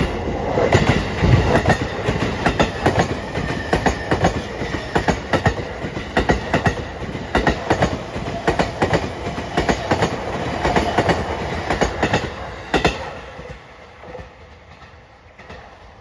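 JR East E233 series 3000 electric multiple unit passing while accelerating, its wheels clicking over the rail joints in a fast, steady clickety-clack of paired beats. The joint clatter stops about 13 seconds in and the train's sound fades as it recedes.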